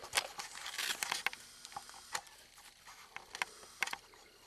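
A short rustle in the first second, then scattered light clicks and taps that thin out toward the end.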